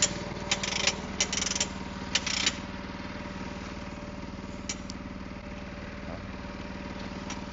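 Small Honda gasoline engine driving the sprayer's banjo pump, running steadily at a constant throttle. Several short handling noises come in the first couple of seconds, with a few more later.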